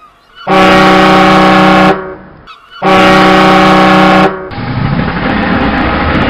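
Ship's horn sounding two long, steady blasts, signalling departure. A rumbling engine noise then swells in as the ship gets under way.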